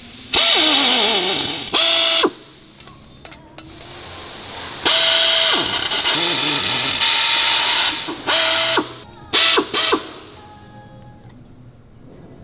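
HYTORC pneumatic torque gun running in repeated bursts as it drives down bolts, its air motor hissing with a whine; the pitch sags on the first long run and the last few pulls are short.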